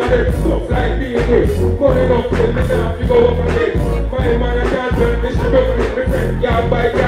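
Live reggae music over a stage sound system: a heavy bass beat with a performer singing into a microphone.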